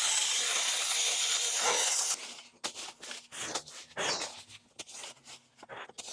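Stihl mini pruning chainsaw running steadily in one burst that cuts off about two seconds in, followed by irregular crackling and rustling of brush and twigs.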